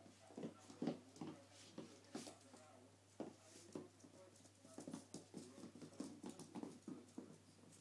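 Chihuahua puppy tussling with a plush toy on a wooden floor: faint, irregular taps and scuffles with short, low puppy grunts.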